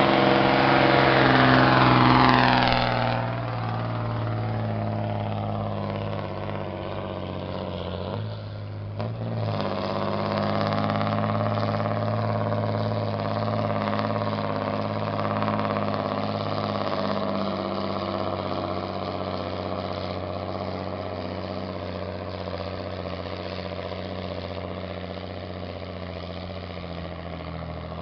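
Mercedes-Benz 1621 truck's diesel engine running loud at high revs, the pitch falling over the first three seconds, then pulling away. About eight to nine seconds in the note breaks off and picks up again as it shifts gear, then it runs steadily and slowly fades as the truck drives off up the hill.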